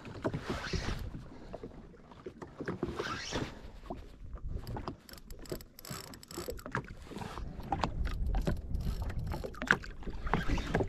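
Small waves slapping and lapping irregularly against the hull of a drifting jet ski, with wind rumbling on the microphone in the second half.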